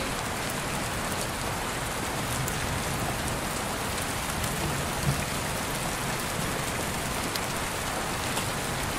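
Steady rain falling, a continuous even hiss with scattered faint drop ticks.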